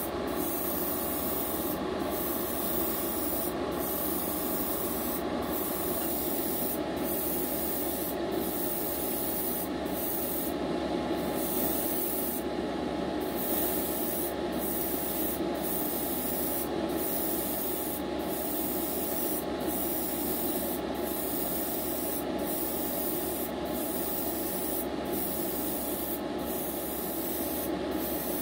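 Airbrush spraying red lacquer paint onto a plastic test piece: a steady hiss of air and paint that breaks off briefly about once a second as the trigger is let off between passes, with a couple of longer breaks near the middle. A steady hum runs underneath.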